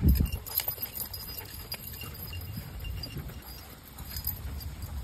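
Handling noise on a phone held while walking: a thump at the start and a few light clicks, then a steady low rumble.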